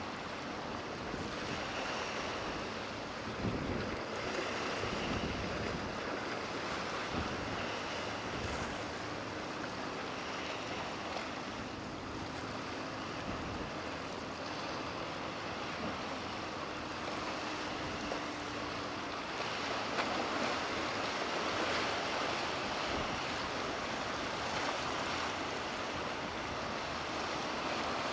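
Waves and surf with wind buffeting the microphone. A faint, low steady hum of a distant boat engine comes in partway through and fades out again. The wind noise grows a little louder near the end.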